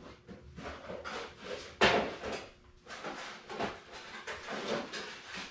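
Irregular clattering and knocking of tools and parts being handled on a workbench, with one sharper knock about two seconds in.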